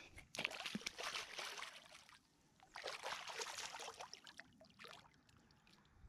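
Shallow water splashing and sloshing in two short bouts as a small blue catfish is let go by hand and swims off.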